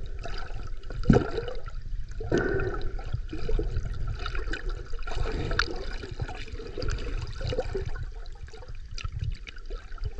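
Shallow seawater sloshing and gurgling, with irregular splashes over a steady low rumble.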